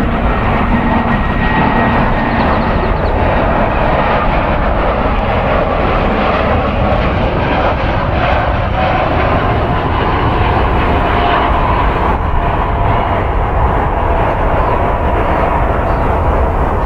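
Jet engines of a narrow-body twin-jet airliner on final approach, landing gear down: a steady rushing noise with a faint high engine whine that slowly falls in pitch as the plane passes.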